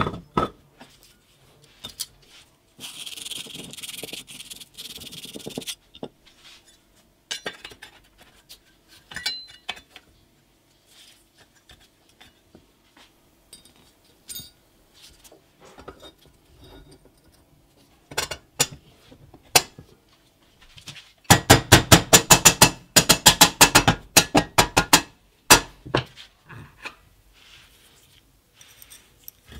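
Clinks and knocks of metal parts of a vintage Iwata air compressor's electric motor being handled and fitted together during reassembly. A hiss lasts about three seconds near the start, and a little after the middle comes a loud run of rapid taps, about ten a second, for around four seconds.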